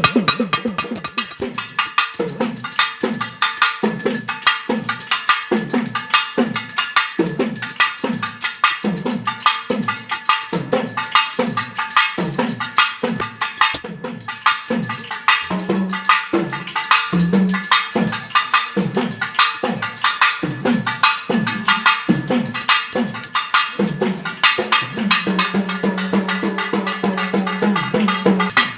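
Music with a steady drum beat and dense jingling, tambourine-like percussion; a long held note comes in near the end.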